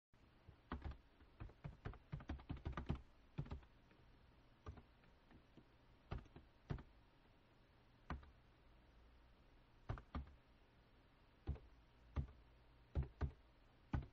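Faint typing on a computer keyboard: a quick run of about a dozen keystrokes in the first three seconds, then single keystrokes a second or more apart.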